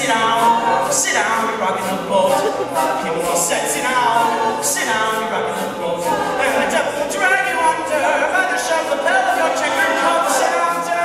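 All-male a cappella group singing close harmonies in a lively rhythm, with crisp hissy strokes on the beat about twice a second.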